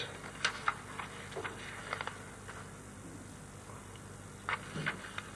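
Quiet room tone in a lecture hall, with a few faint scattered clicks and two soft short knocks near the end.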